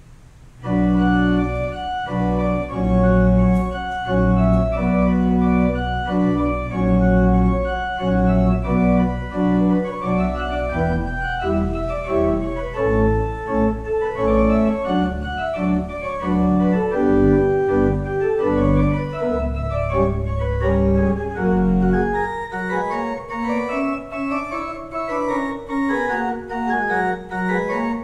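Church pipe organ playing, starting about a second in with full sustained chords over a deep pedal bass. Near the end the bass drops out, leaving lighter, higher lines.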